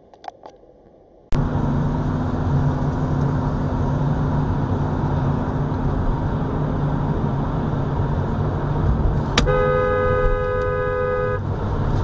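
Steady road and engine noise heard from inside a moving car, starting abruptly about a second in. Near the end a car horn sounds for about two seconds, a warning honk at a car cutting in close on the right.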